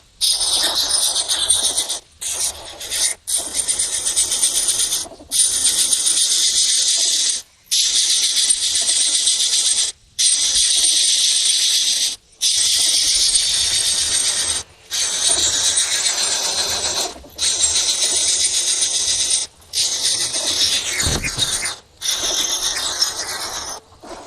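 Dense, high-pitched chattering of a large flock of small birds, coming in stretches a second or two long with sudden breaks between them.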